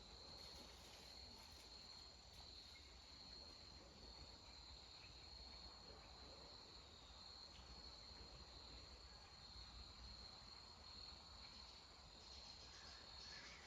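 Faint, steady outdoor insect chorus: a continuous high-pitched trill, with a low rumble underneath.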